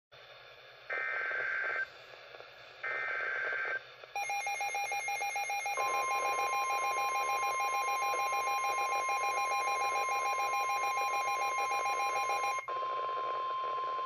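Midland NOAA weather radio sounding a warning alert: two short data bursts of the alert header, then the radio's own rapid beeping, with the steady 1050 Hz NWS warning tone starting under it about six seconds in. The beeping cuts off near the end while the steady tone holds on.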